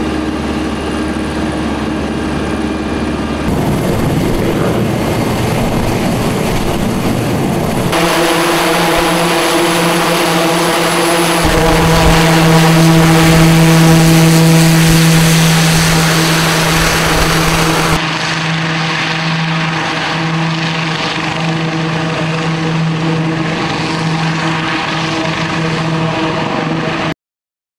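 Eurocopter X3 compound helicopter running, its turbine engines, main rotor and side propellers making a steady droning whine with a strong low hum. Several separate takes follow one another, the sound changing abruptly between them, and it cuts off just before the end.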